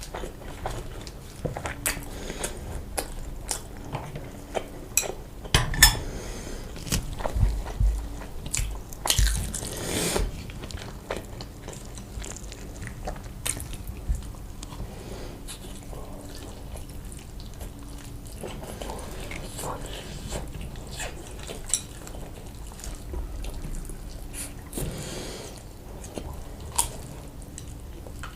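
A person eating close to the microphone: bites and chewing with scattered sharp clicks and crunches, and two longer noisy stretches about nine and twenty-five seconds in.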